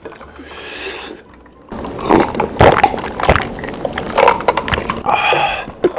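A person's sharp breath, then gulping a drink from a glass in a run of loud swallows, to cool a mouth burning from spicy food; a breathy exhale near the end.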